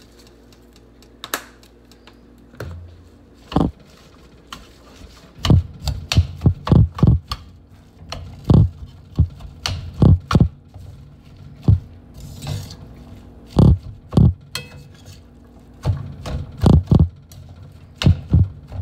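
Stirring and tossing chopped vegetables and ground meat in a large stainless steel pan with a spatula: a run of dull knocks and thumps against the pan, several a second in irregular bursts, starting a few seconds in after a quiet low hum.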